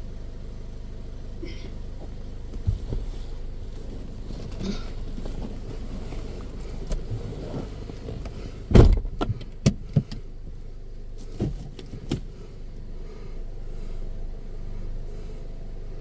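Car engine running at idle with a steady low rumble. A quick cluster of loud knocks comes about nine seconds in, and two lighter knocks follow a couple of seconds later.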